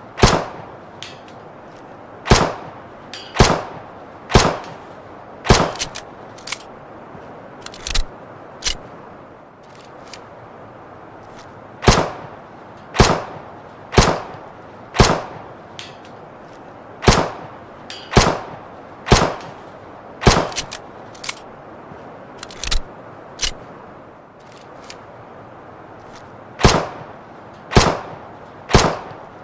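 Luger pistol firing single shots, each crack followed by a short echo. The shots come about once a second in runs of three to five, with pauses of a few seconds and some fainter clicks in between.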